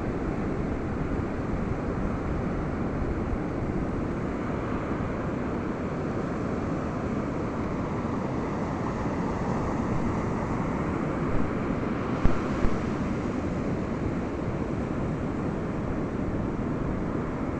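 Ocean surf washing steadily onto a beach, with wind noise on the microphone. A few brief thumps come about two-thirds of the way through.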